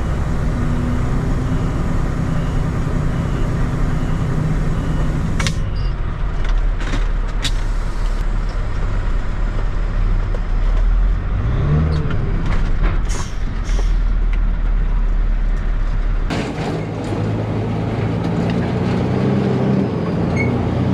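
Peterbilt 379 semi truck's diesel engine running steadily, its pitch rising briefly about halfway through. A few short sharp sounds cut across it.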